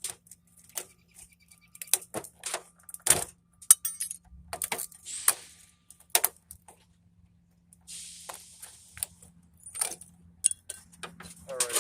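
Irregular sharp clinks and clatters of small metal parts being handled while scrap is pulled apart by hand, with a brief pause a little past the middle.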